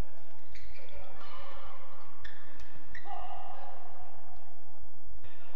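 Badminton rally on an indoor court: sharp racket hits on the shuttlecock and shoe squeaks, the last hits coming quickly about two to three seconds in. A player's short shout follows as the point is won.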